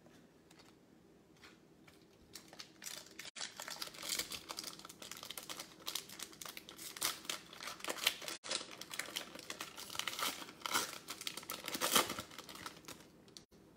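Football trading cards being slid and flicked against each other in the hands, a run of quick papery rustles and flicks that starts a few seconds in and goes on until near the end.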